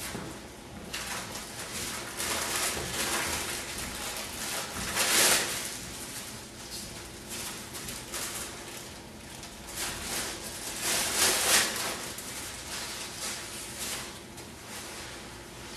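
Clear plastic packaging crinkling and cleanroom coverall fabric rustling as the bagged garment is opened and shaken out, uneven throughout, with two louder spells about five and eleven seconds in.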